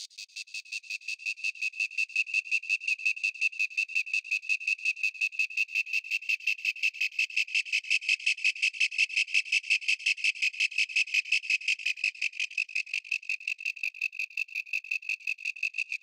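Synthesized cricket chirp from NI Absynth's Cricket Chirp Tool patch, layering FM, ring-modulation and wavetable oscillators: a fast, even pulsing of about six or seven chirps a second on a steady high tone. It grows louder over the first couple of seconds and turns fuller and raspier around the middle as the macro controls change, then thins back to the clearer tone.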